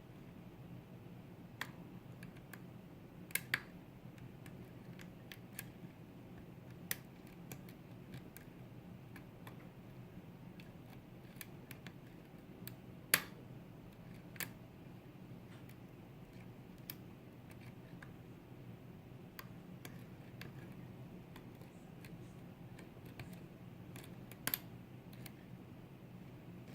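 Lock pick and tension wrench working in a pin-tumbler lock: scattered faint metallic clicks and ticks, irregularly spaced, with one sharper click about 13 seconds in, over a steady low hum.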